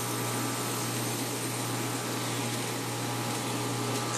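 Heat pump outdoor unit running in cooling mode, its compressor and condenser fan making a steady hum with a rush of fan air.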